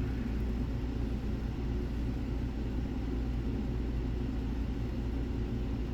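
Steady low machine hum, an unchanging drone that continues without a break.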